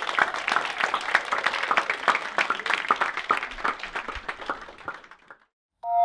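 A small audience applauding, fading out about five seconds in. After a brief silence, a loud sound effect with steady bright tones begins right at the end.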